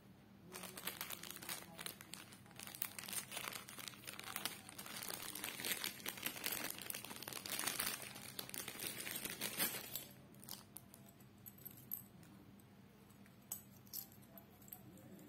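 Packaging being crinkled and crumpled by hand for about ten seconds, then a few scattered crackles and clicks.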